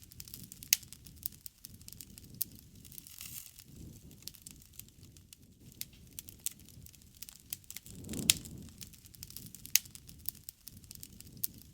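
Wood campfire crackling with frequent sharp pops, the loudest about eight seconds in, over a low rushing that swells and fades every few seconds.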